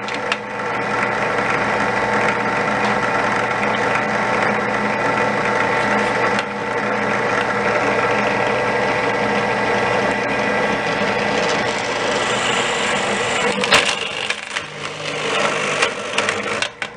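Drill press motor running steadily as its bit bores into the plastic of an Xbox 360 controller's left thumbstick. A sharp click about 14 seconds in.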